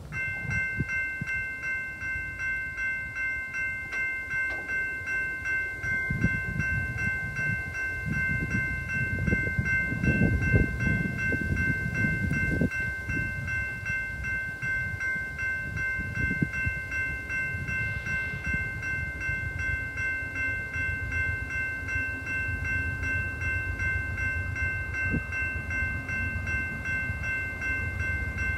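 Railroad crossing warning bell, a GS Type 2 electronic bell, dinging in a steady, even rhythm, starting as the crossing signals activate. A low, uneven rumble runs underneath.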